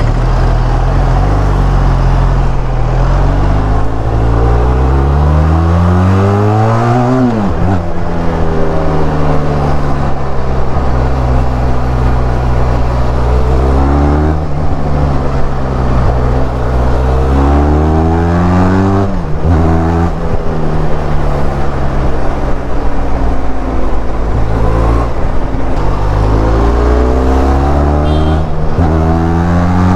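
Benelli TRK 502's parallel-twin engine and exhaust under way, the revs climbing hard under acceleration and dropping sharply as the throttle closes or a gear changes, three or four times over.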